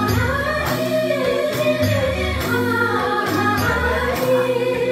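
Women singing a song into microphones over amplified backing music with a steady, repeating bass line.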